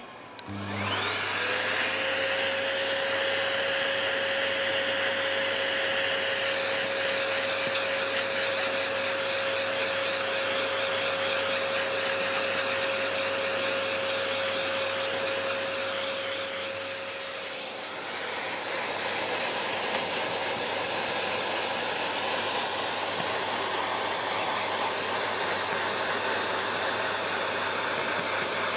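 Vacuum cleaner fitted with a nozzle attachment, starting up and then running steadily with a high whine over the rush of air. About 17 seconds in the sound dips briefly and its whine drops away, then it carries on running.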